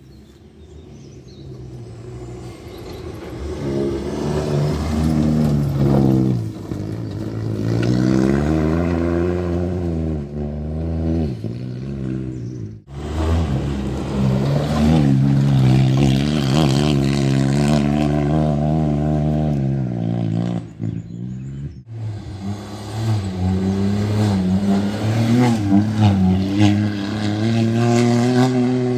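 A rally car's engine approaches from a distance and goes by at full speed, revving hard, its pitch climbing and dropping again and again through the gear changes. Twice the sound cuts off abruptly and picks up on another loud pass of a rally car.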